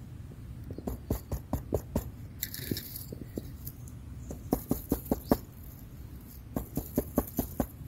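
Bristle brush on a mushroom knife swept over the cap of a wild field mushroom to clean off dirt: quick scratchy strokes, several a second, in three short runs.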